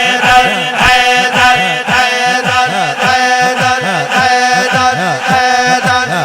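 Devotional naat music between sung lines: a sustained drone of steady held tones over a beat of low drum strokes that bend in pitch, about two a second.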